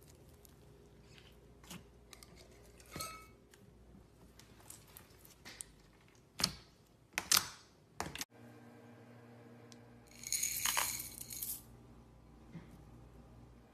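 Clear slime being handled, with sharp sticky clicks and pops, three loud ones close together past the middle, then a burst of crackly hissing about ten seconds in.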